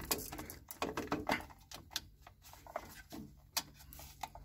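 Plastic actuator head of a three-port diverter valve being handled and pushed onto its valve body, giving irregular small clicks and knocks of plastic on metal.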